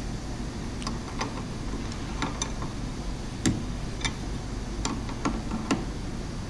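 Light, sharp clicks and taps at irregular intervals, about ten in all, over a steady low hum.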